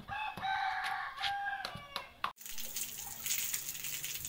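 A long pitched call in a few held parts for about two seconds. After a sudden cut, a garden hose sprays water over a horse's head and coat in a steady hiss.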